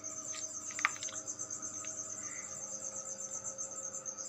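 A high, steady trill pulsing about ten times a second over the low steady hum of a homemade egg incubator.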